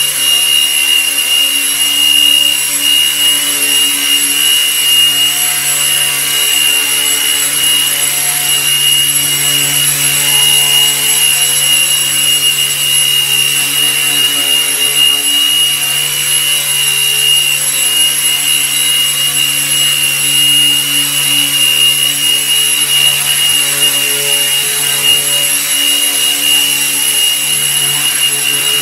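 Micro RC helicopter built on Align T-Rex 150 mechanics with a T-Motor 1502 brushless motor, flying and hovering. It gives a steady high-pitched whine over the even buzz of its spinning rotor blades.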